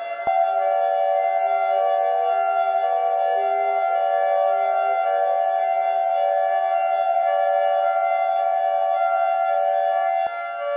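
Civil defense siren sounding a steady tone made of several pitches at once. About ten seconds in it drops a little in level and one of its pitches falls away.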